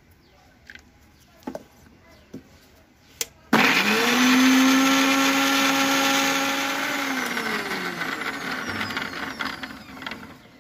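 Electric mixer grinder with a steel jar grinding ginger, garlic and green chilli with a little water into a paste. After a few light clicks from the lid and jar being handled, the motor starts suddenly about a third of the way in, comes up to speed with a steady whine, then winds down with a falling pitch once it is switched off.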